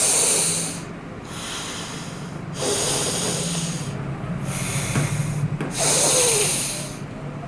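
Forceful breaths in and out through the nose, one nostril held shut at a time, in alternate-nostril breathing (anulom vilom). There are about five airy nasal breaths, each a second or so long, with short pauses between them.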